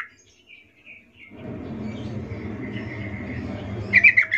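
Yellow-vented bulbul song: a fast run of short chirps cuts off right at the start, and another begins near the end. In between, a steady low rumble sets in about a second and a half in, with faint chirps over it.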